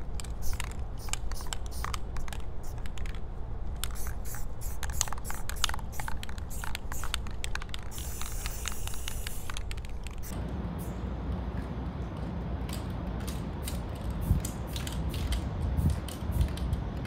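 Aerosol spray paint can hissing against a wall in many short spurts, with one longer steady spray of about two seconds halfway through.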